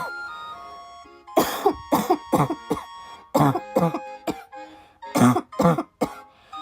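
A young woman coughing repeatedly, in three short fits of several quick coughs each, over steady background music.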